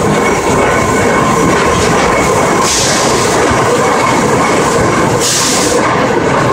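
Climax geared steam locomotive and its train running along the track, a steady loud rumble of wheels and running gear with faint steady whining tones, broken twice by short hisses.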